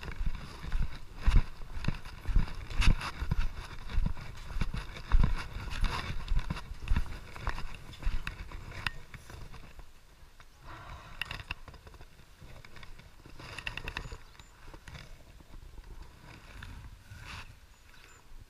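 Footsteps thudding on a hollow wooden plank walkway, about two steps a second. About eight seconds in they stop and it goes quieter, with a few short rattling clicks.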